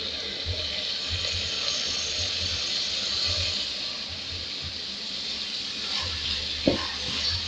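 Chopped vegetables sizzling steadily in an aluminium pot as they are stirred with a wooden spoon, with one sharp knock near the end.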